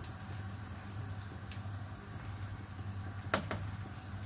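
Steady low electrical hum in a kitchen, with a few faint clicks and one short knock about three seconds in.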